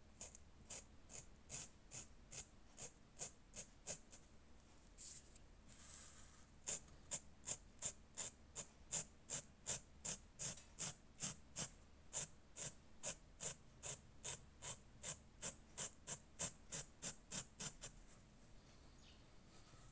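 Felt-tip textile marker scratching back and forth on printed fabric, in rhythmic strokes about three a second. There is a short pause about five seconds in, then the strokes resume more steadily and stop a couple of seconds before the end.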